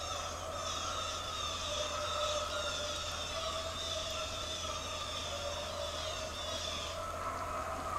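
A pack of deer hounds baying on the chase: several drawn-out, wavering howls overlapping without a break, the sign of hounds running hot on a whitetail's scent.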